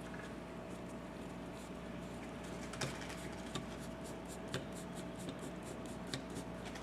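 Screwdriver backing out the idle mixture screw from a 1972 Honda CB350 carburetor body: a run of faint light metal ticks, several a second, with a few sharper clicks.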